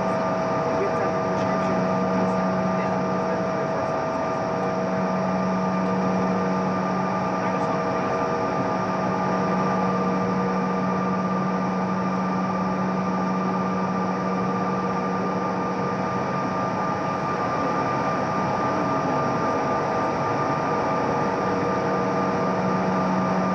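Steady cabin noise of a Bombardier CRJ900 taxiing, its two rear-mounted GE CF34 turbofans at idle, heard from inside the cabin: an even rush with a low hum and a couple of higher whining tones held at a fixed pitch.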